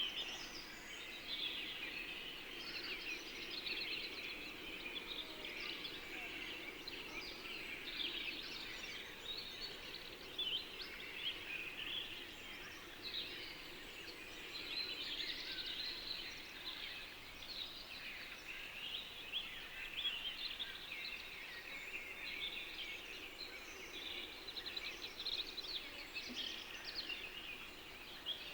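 A chorus of many small birds chirping and singing, their calls overlapping continuously, over a faint steady background.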